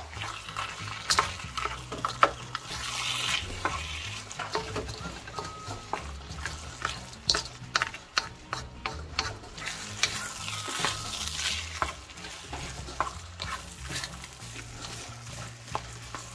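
Wooden spatula stirring and scraping vegetable fried rice around a hot wok, the rice sizzling as it fries, with frequent clicks and scrapes of the spatula against the pan, the loudest about one and two seconds in.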